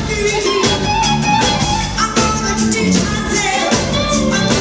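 Live 2 Tone ska band playing a full song with singing over drums, bass, guitar and keyboard, with a steady beat.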